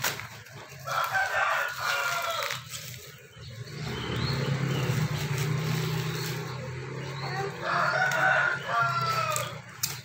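A rooster crowing twice, about a second in and again near the end, with a low steady hum in between.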